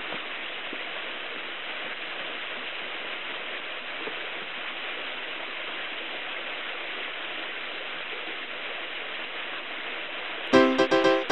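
Small waterfall cascading over boulders: a steady rush of water. Near the end, piano music starts abruptly.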